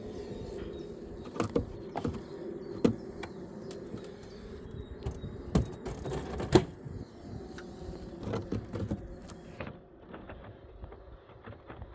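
Honey bees buzzing around open hives in a steady hum, with irregular knocks and clunks of wooden hive boxes and frames being handled. The hum fades a little near the end.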